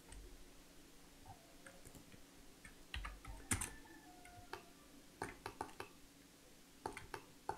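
Faint, scattered clicks of a computer mouse and keyboard, a few at a time, over a faint steady hum.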